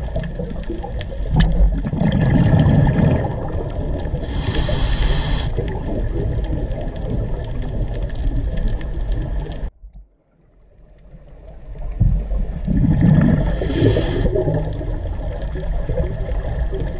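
Steady rushing, water-like noise over a deep rumble. It swells twice, each time with a brief high hiss, and cuts out suddenly about ten seconds in before fading back up.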